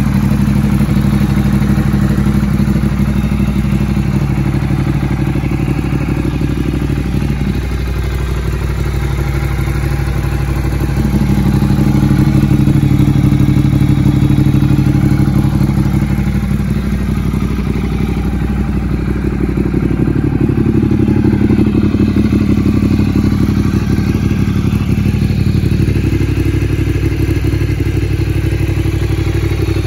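Ducati Multistrada 1200S's 1198 cc L-twin engine running steadily at idle, a low, even engine note that shifts slightly in tone every few seconds.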